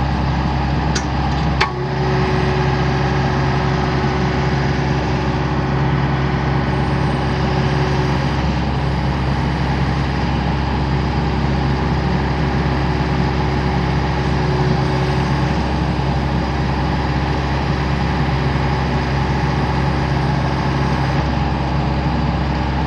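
Mini excavator's diesel engine running steadily. Two sharp clicks or knocks sound about a second and a second and a half in.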